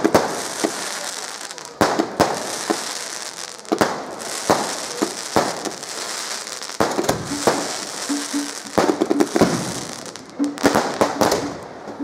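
Fireworks going off: a string of sharp bangs at uneven intervals over a steady crackling hiss.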